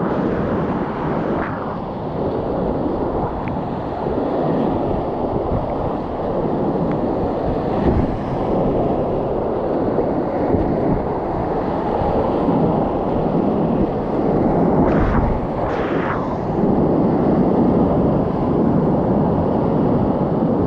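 Whitewater rapids rushing and crashing around a kayak as it runs them, a steady loud roar of churning water close to the microphone, with a couple of brief louder surges about three-quarters of the way through.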